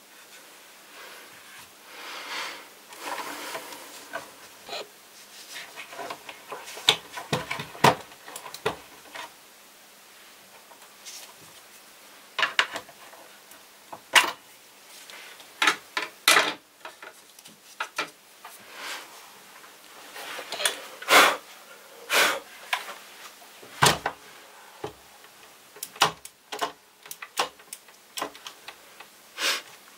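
Plastic parts of a Vorwerk VR100 robot vacuum being taken apart by hand: irregular clicks and knocks with a few longer rubbing scrapes, and a screwdriver used partway through.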